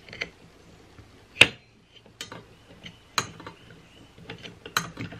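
Scattered sharp metallic clicks and taps from an Allen wrench and the blade's locking nut as a blade is fitted and tightened on a mini circular saw, the loudest click about a second and a half in.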